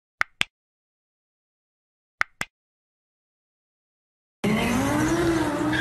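Mouse-click sound effect played twice as a double click, once at the start and again about two seconds later. Then, about four and a half seconds in, loud noisy sound with a wavering pitched tone cuts in abruptly.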